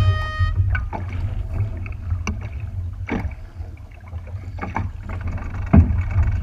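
Boat on the water: a steady low rumble with wind on the microphone, broken by several short knocks and slaps. A short, high beep sounds at the very start.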